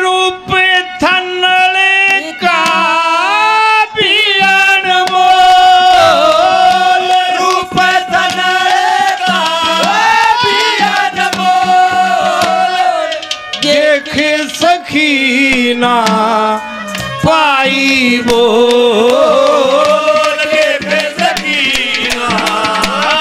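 A male voice singing a Haryanvi ragni, long held and bending melodic lines, accompanied by hand drums struck in a steady rhythm.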